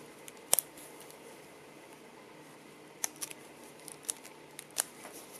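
Sparse small clicks and taps as a rubber elastic is wound around a 3D-printed plastic pen holder. One sharper click comes about half a second in, and several lighter ones come from about three seconds in.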